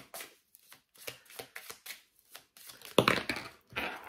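A deck of reading cards being shuffled by hand: a run of quick soft flicks, then a louder rustling shuffle about three seconds in and another shortly after.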